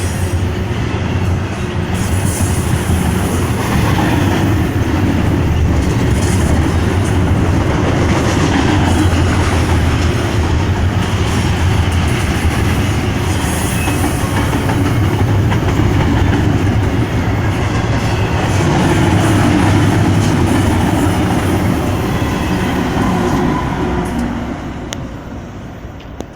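Freight train cars rolling past at close range: a steady rumble and rattle of steel wheels on rail, fading away over the last few seconds.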